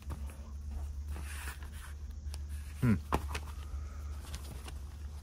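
Old newspapers rustling and crinkling as they are handled and moved around in a wooden trunk, with a short, louder scrape or knock about three seconds in, over a steady low hum.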